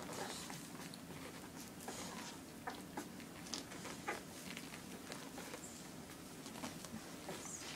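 A litter of 17-day-old puppies nursing: faint scattered suckling clicks and smacks, with a few thin, high squeaks.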